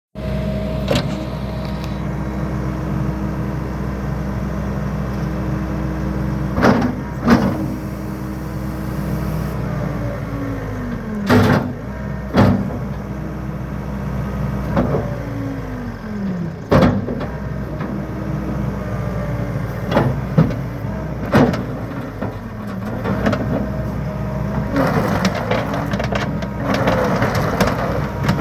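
John Deere 317G tracked skid steer's diesel engine running steadily, with its pitch dipping a few times as if under load. Several loud single knocks and clanks come through it, and a denser rattling and crunching builds near the end.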